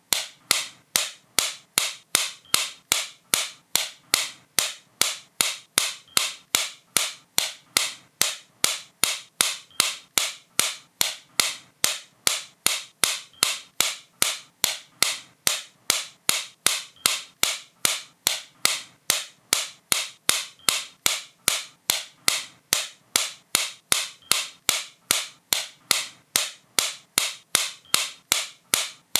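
Sharp, crisp clicks repeating at a steady even pace of roughly two to two and a half per second.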